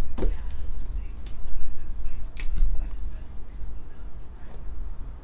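Shrink-wrapped trading-card hobby boxes being slid and knocked against each other on a table, a series of knocks and scuffs. Near the end a marker scratches on the plastic wrap as numbers are written on the boxes.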